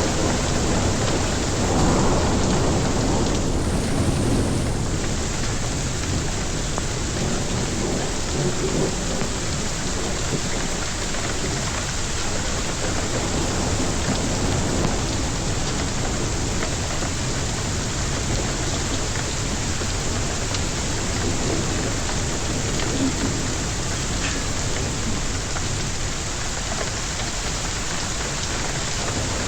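Hailstorm: heavy rain and hail pelting down steadily, with a roll of thunder rumbling through the first few seconds.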